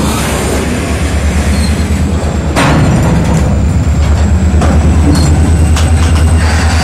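Reading Blue Mountain & Northern diesel locomotives moving a cut of covered hoppers at slow speed: the engines' steady low rumble with the cars rolling on the rails, and one sharp clank about two and a half seconds in, after which it gets louder.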